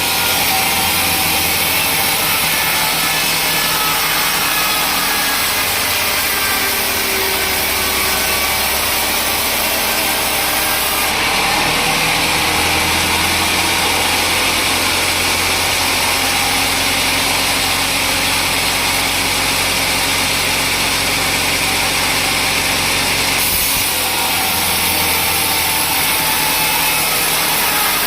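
Sawmill saw running steadily, with continuous machine noise while cutting teak logs; the character of the noise changes about a third of the way in and again near the end.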